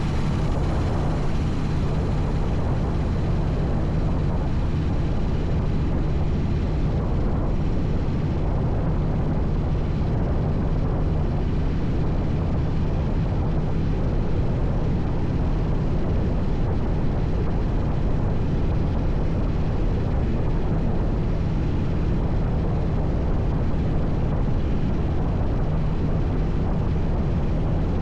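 A vehicle engine running at a steady speed: a constant low drone over road-like noise that does not rise, fall or change.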